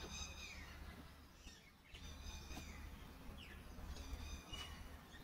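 Birds calling: a high call repeated every second or two, each with a short falling note, over a low steady background rumble.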